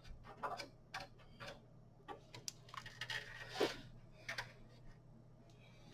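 Irregular small clicks and taps of screws and a screwdriver against metal as the screws holding a graphics card in a PC case are started, with a brief scraping noise about halfway through. A low steady hum runs underneath.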